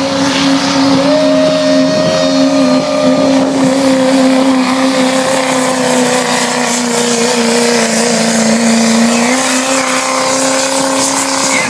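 Diesel pickup engine held at full throttle, pulling a weight sled in a truck pull. It is loud and steady. Its pitch sags slowly under the load, picks up again about nine seconds in, then cuts off suddenly at the end.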